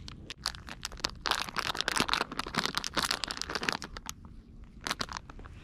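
A clear plastic zip-top bag of soft-plastic jig bodies crinkling and rustling as it is handled, stopping about four seconds in. A couple of light clicks follow near the end.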